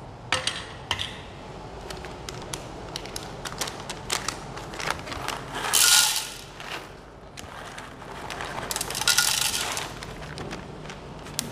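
Whole coffee beans poured from a bag into the hopper of a Mazzer Super Jolly grinder, rattling in two pours about six and nine seconds in, with scattered clicks of handling between.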